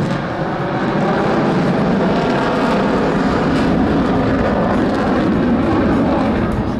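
Loud, steady engine noise of an aircraft flying a display.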